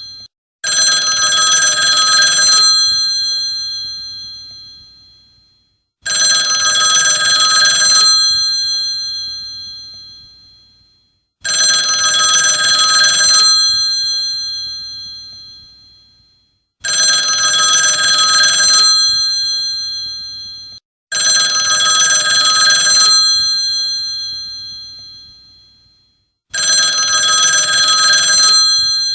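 Old telephone's bell ringing: six rings, each about two seconds long and starting roughly every five seconds, each one fading out before the next.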